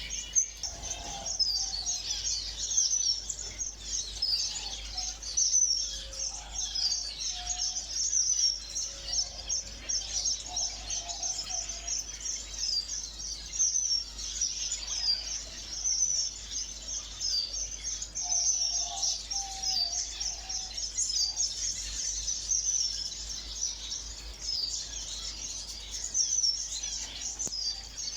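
A flock of small ornamental aviary birds chirping together in a dense, unbroken chorus of short high chirps, with occasional lower calls mixed in.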